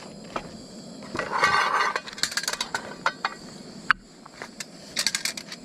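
A utensil clinking and scraping against the metal pan of a Trangia camp stove as food is stirred: a short scraping stretch about a second in, then a run of light clinks.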